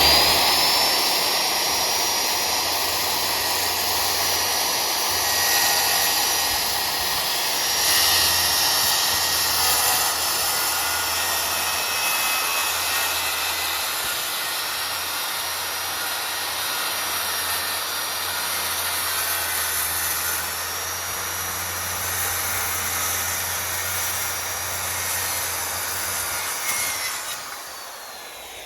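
Circular saw ripping a long cut through half-inch plywood: the motor's whine holds steady under load, then falls away as the saw winds down near the end.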